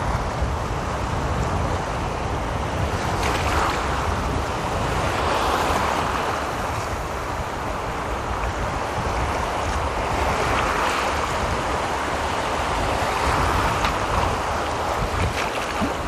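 Small sea waves breaking and washing over the shallows at the shoreline, swelling louder every few seconds, with wind rumbling on the microphone.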